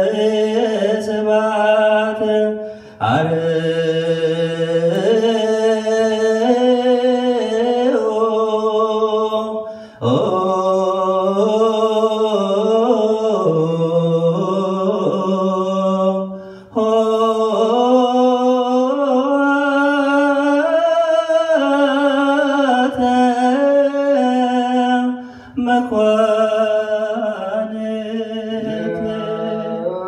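Ethiopian Orthodox liturgical chant: voices singing slow, drawn-out melismatic phrases, broken by four short pauses.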